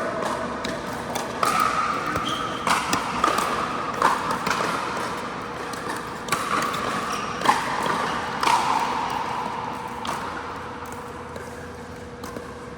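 A pickleball rally on an indoor court: a string of sharp pops from paddles striking the plastic ball and the ball bouncing, about one every half second to second and a half, each with a short ringing echo, over a steady low hum.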